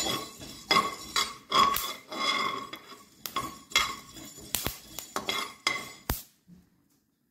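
A perforated steel skimmer is stirring and scraping black peppercorns as they dry-roast in an aluminium kadai, the peppercorns rattling against the pan in irregular clicks. The stirring stops about six seconds in.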